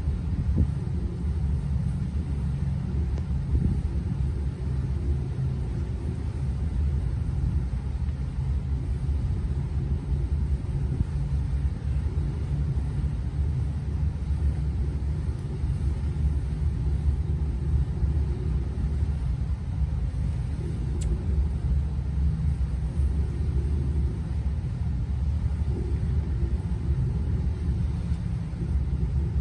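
Steady low rumble aboard a motor yacht under way, its engines running.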